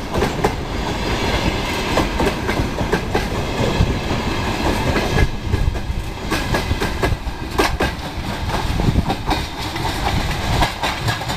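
Passing freight wagons, flatcars and hoppers, clattering close by: steady rolling rumble of the wheels with a stream of sharp knocks as the wheelsets cross the rail joints.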